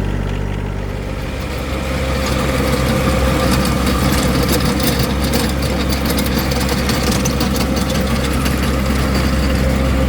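Rototiller engine running steadily, then changing note about a second in as the tines start working the ground, with a rough, crackling churn of soil and clods; the ground is hard in places.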